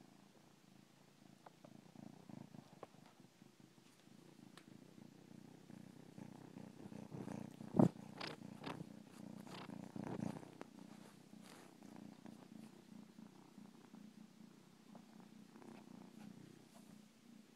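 Domestic cat purring steadily, with the microphone held close against its fur. A few sharp knocks and rustles stand out about halfway through.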